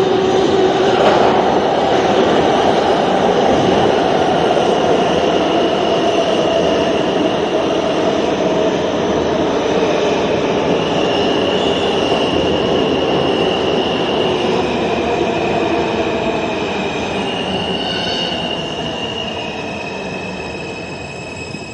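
R160 subway train running on steel rails, a dense rumble with a hum that sags slightly in pitch over the first few seconds. From about halfway in, high steady metallic squeals come and go as the train slows and its sound gradually eases off.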